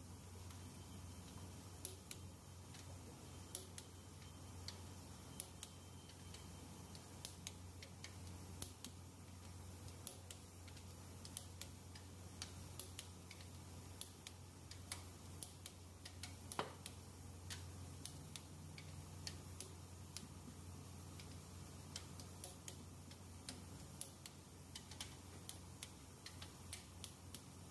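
Faint, irregular clicking of a torque wrench ratcheting as the cylinder head bolts are tightened, with one louder, ringing click about sixteen seconds in, over a steady low hum.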